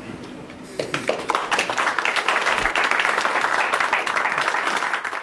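Audience applauding: the clapping starts about a second in and quickly builds to a full, steady round of applause.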